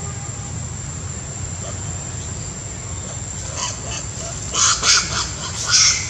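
Long-tailed macaques screaming: a few short, shrill calls in the second half, the last ones the loudest.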